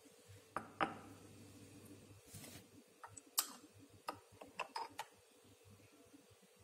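Faint scattered clicks and light taps of a spoon against a jar as thick tomato sauce is spooned into it. There are about a dozen over the first five seconds, the loudest about halfway through.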